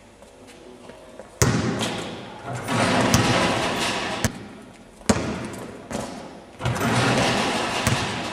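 A basketball bouncing and banging off the floor and backboard in a large hall, several sharp impacts that echo, with swells of crowd voices building between them.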